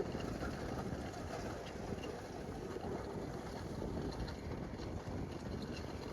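Cat 265 skid steer running steadily, heard from inside its cab.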